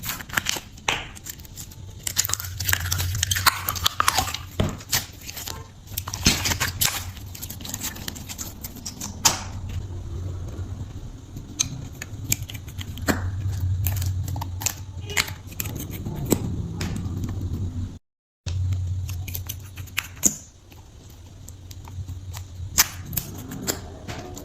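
Slime being squished and poked by hand, making many irregular crisp clicks, crackles and wet pops, over a steady low hum.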